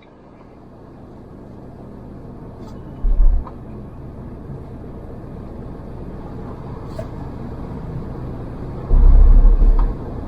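Mahindra Thar driving on a rain-wet road: a steady rumble of engine and road noise that fades in over the first couple of seconds. Two heavy low thumps break through, a short one about three seconds in and a longer one near the end.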